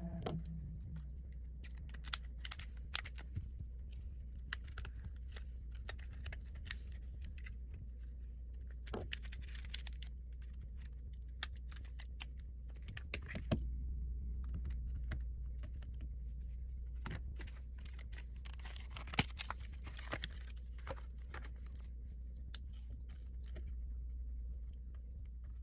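Irregular small clicks and taps of tools and parts being handled while an iPhone 11's screen is replaced, over a steady low hum.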